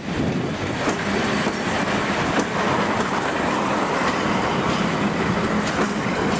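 A train of vintage Czech M240 'Singrovka' railcars and trailers passing at close range: a steady rolling rumble, with the wheels clacking over rail joints about every second or so.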